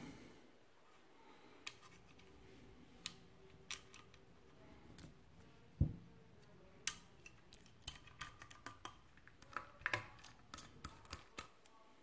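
Small heatsink screws being handled and driven by hand with a screwdriver into the back of a graphics card: scattered light metallic clicks and taps, a single heavier knock about six seconds in, then a quick run of clicks near the end.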